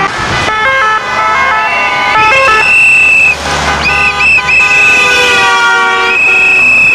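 Vehicle horns sounding in long and short blasts at several different pitches, overlapping one another, with a long high tone held for about a second at a time in the second half.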